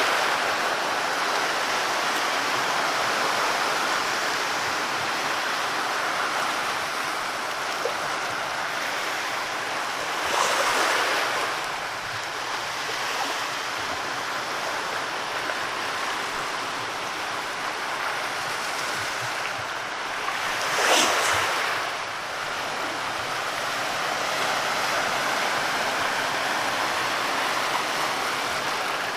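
Sea waves washing onto the shore: a steady rush of surf, with a louder wave breaking about ten seconds in and another about twenty-one seconds in.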